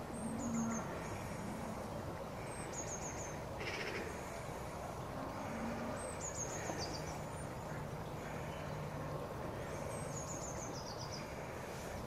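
Wind blowing through bare trees as a steady rush. A small songbird repeats a short, high, quick phrase that steps down in pitch, four times.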